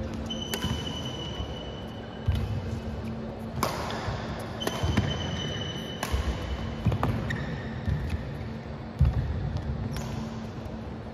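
Badminton rally in a hall: several sharp cracks of rackets striking the shuttlecock, a second or more apart, with thudding footsteps on the court. A steady high tone sounds twice, each for a second or two, over a low constant hum.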